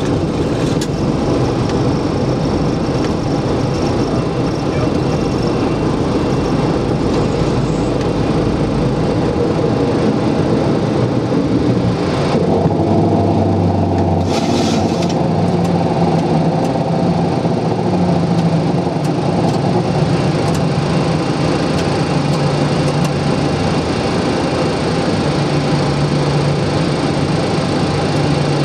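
Boeing 737 take-off heard from the cockpit: jet engines at take-off thrust with a heavy rumble from the wheels on a bumpy runway, the rumble stopping about a third of the way through as the aircraft lifts off. Steady engine and airflow noise with low hums follows in the climb, broken by a brief hiss about halfway.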